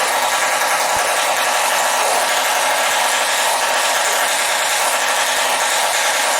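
Small two-stroke motorized-bicycle engine running steadily with a fast, rattly buzz.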